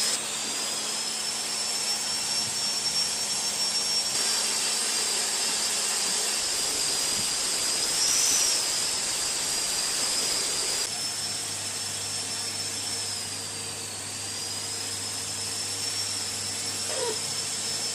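Small electric blower, such as a hair dryer or heat gun, running steadily: a rushing hiss with a high whine that wavers a little in pitch, as used to dry moisture out of a fogged headlight.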